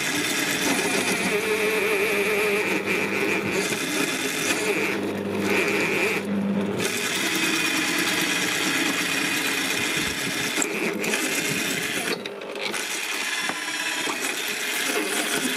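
Parkside PTBMOD 710 B2 bench pillar drill running at 500 rpm while a 12 mm twist bit cuts steel, chips curling off the bit. The motor is working hard under the load and loses some power at this low speed.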